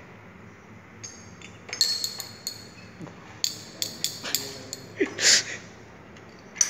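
Laboratory glassware clinking, a quick run of sharp glassy clinks and taps over a couple of seconds, then a brief rustle about five seconds in.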